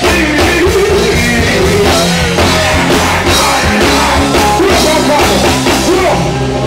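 Live band music at loud stage volume: drum kit, electric guitar and keyboards playing a steady beat, with a singer's voice over it.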